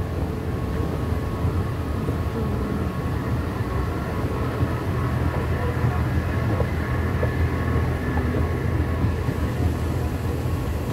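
Steady low rumble and hum of metro station machinery heard while riding a descending escalator, with faint steady tones above it.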